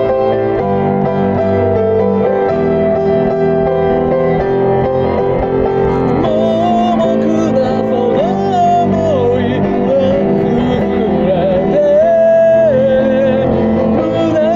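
Piano playing slow chords, joined about six seconds in by a solo voice singing long held notes with vibrato over it.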